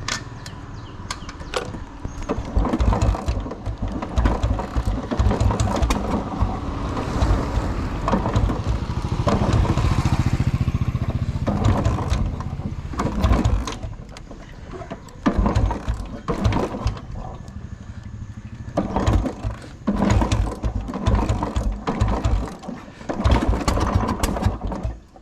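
Royal Enfield Bullet Electra's single-cylinder engine being started over and over: it fires in short spells of low, rapid thudding and dies again between tries, failing to keep running.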